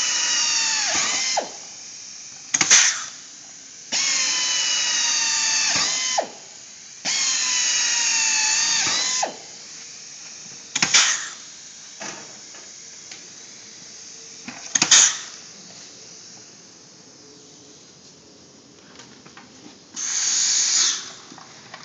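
Power drill running in three bursts of about two seconds, its whine falling in pitch as it bites, drilling holes for rivets through an awning's reinforcing strap. Three short sharp snaps of rivets being set come between and after the drilling runs, and a brief noisy burst comes near the end.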